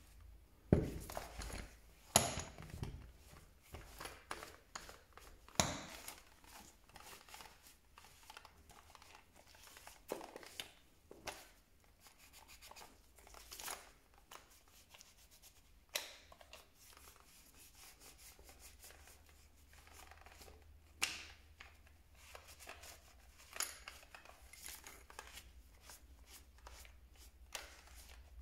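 Hand-cleaning of a plastic-bodied hammer drill: intermittent rubbing and scrubbing, with a few sharp clicks and knocks seconds apart as the drill and cleaning tools are handled and set down.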